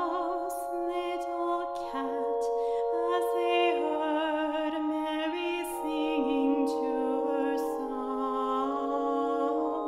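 Handbells ringing sustained chords softly under a female solo voice singing a slow Christmas carol.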